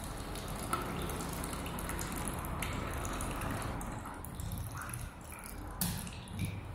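Thin stream of water trickling steadily from a machine's overflow outlet into a small paper cup, the sign that the water tank is full. A brief knock near the end.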